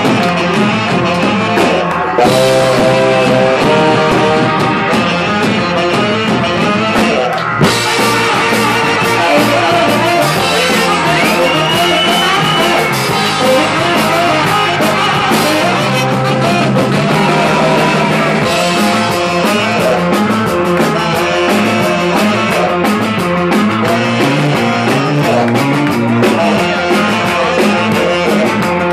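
Live rock and roll band playing loudly, with saxophone over electric guitar, bass and drums, with a brief break about seven and a half seconds in.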